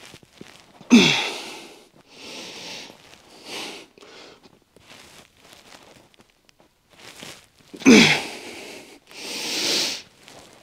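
A man grunting and moaning with effort while lifting through a set of side lateral raises, with hard breathing between. There are two loud groans, about a second in and near the end, each falling in pitch and trailing into a heavy exhale.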